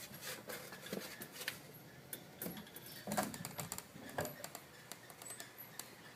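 Door swinging slowly shut under a Global hydraulic door closer, with faint scattered clicks and creaks from the door and closer arm and two slightly louder rubbing sounds about three and four seconds in.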